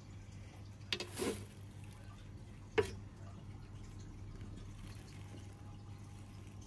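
Faint handling noises: a brief rustle about a second in and one sharp click near three seconds, over a steady low hum.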